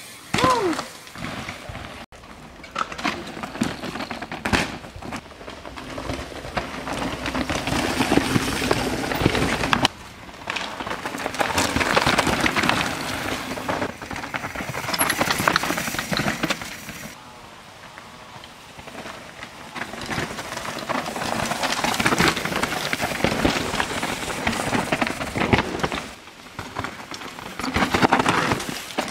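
Downhill mountain bikes riding past on a rocky dirt trail, several passes in turn, each swelling and fading: tyres crunching and skidding over dirt, leaves and rock.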